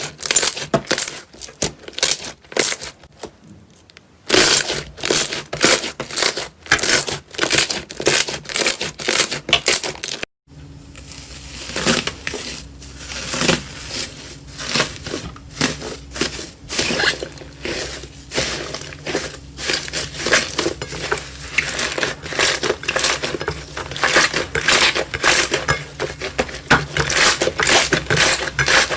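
Slime being squeezed and pressed by hand: dense runs of sharp crackles and pops. There is a short lull about three seconds in and a brief break near ten seconds, after which a faint steady hum sits underneath.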